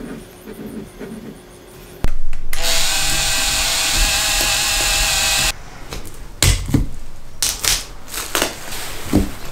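Cordless Makita driver running steadily for about three and a half seconds as it drives the screw of the worm-drive band clamp on the drill jig, stopping abruptly. A few sharp knocks and clicks of the tools being handled follow.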